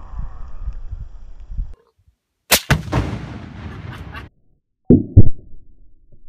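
Explosions. A rumbling tail fades out in the first second or two. A sharp blast comes about two and a half seconds in and echoes for more than a second. Then, about five seconds in, a very loud close blast hits, with a second bang right after it.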